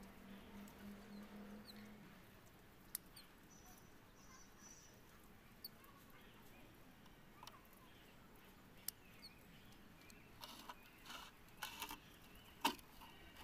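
Near silence with faint rustles and small clicks from hands working in a bonsai's leafy branches, clustering near the end with one sharper click. A few faint bird chirps come about a third of the way in.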